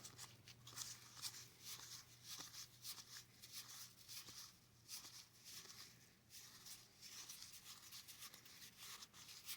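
Faint rustling and light ticks of game cards being handled and leafed through, over a low steady hum.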